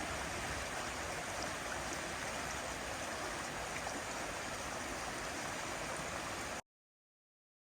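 Doshi River flowing, a steady even rush of water that cuts off suddenly about six and a half seconds in.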